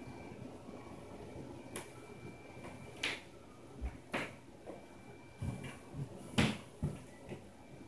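Irregular thumps and knocks from the apartment upstairs, heard through the ceiling, about ten of them starting a couple of seconds in, the loudest about six and a half seconds in. The downstairs tenant takes them for stomping.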